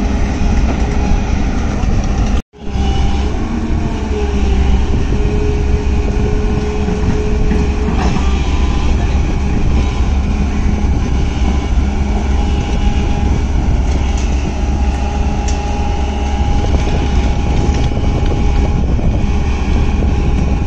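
Hyundai 210 crawler excavator's diesel engine running steadily under load as it works, a deep rumble with a thin whine that comes and goes over it. The sound drops out for a split second about two and a half seconds in.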